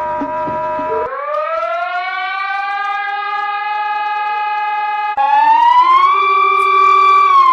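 Warning siren of an emergency alert alarm: a buzzy tone that rises in pitch about a second in and then holds steady, then a louder siren tone cuts in about five seconds in, rises and holds, starting to fall away at the very end.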